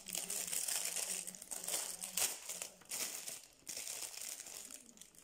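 Plastic packaging crinkling and rustling as it is handled, busiest for the first three seconds or so and then dying down to a few quieter rustles.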